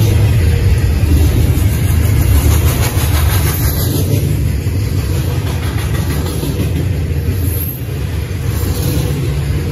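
Double-stack intermodal freight train of well cars rolling past at speed: a steady, loud rumble of steel wheels on the rails.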